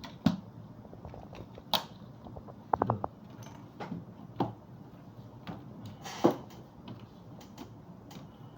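Irregular clicks and knocks from a plastic laptop case being handled and worked open during disassembly, with a quick run of clicks about three seconds in and a sharper knock about six seconds in.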